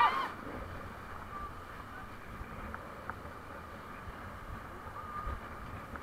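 River rapids rushing around an inflatable raft: a steady, low rush of whitewater with no words over it.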